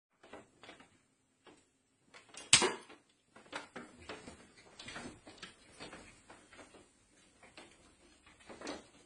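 Irregular clicks and knocks of hard objects being handled, with one sharp, loud knock about two and a half seconds in.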